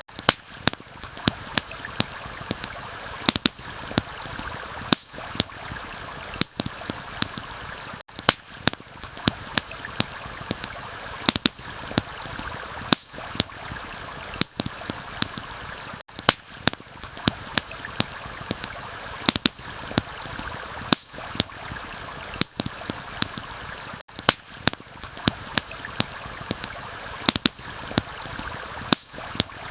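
Steady rushing of a stream with a campfire crackling over it, its sharp pops coming irregularly several times a second.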